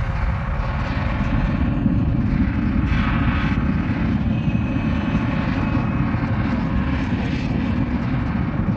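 A steady, loud low rumbling drone with faint held tones above it, like heavy machinery running, and a short swell of hiss about three seconds in.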